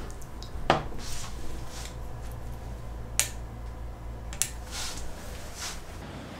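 Closing a laptop at a desk: a few sharp clicks, the loudest about a second in, and soft rubbing sounds as the lid is handled and shut, over a low steady hum.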